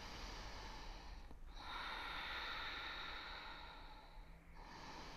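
Soft Ujjayi breathing, air drawn slowly through a narrowed throat: one long breath lasting about three seconds from about a second and a half in, with the next breath starting near the end.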